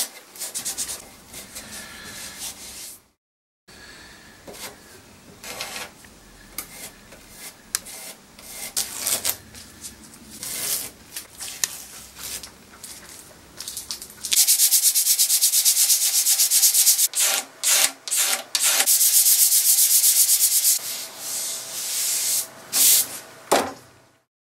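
Masking tape being handled, torn and rubbed down onto a wooden drawer front in irregular scratchy bursts. About halfway through, louder sanding begins: fast, even scraping strokes with brief pauses, smoothing the filled chip in the veneer.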